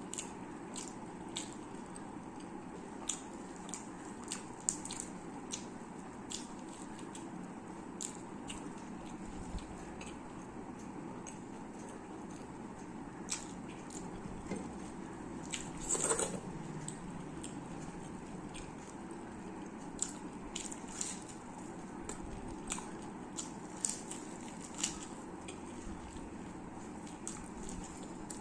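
Close-up eating sounds of a person chewing a fried fritter eaten by hand: wet mouth smacks and many short clicks over a steady low hiss, with one louder burst about halfway through.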